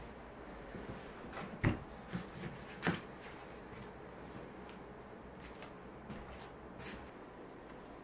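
A quilt and futon rustling as a person gets up, then slide slippers knocking on a wooden floor. There are two louder knocks, about one and a half and three seconds in, and a few softer ones in between, with a faint one near the end.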